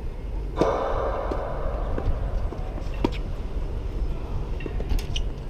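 Tennis racket striking the ball on a serve about half a second in, followed by a brief rush of noise, then fainter ball hits and bounces about 3 and 5 seconds in, over a steady low rumble.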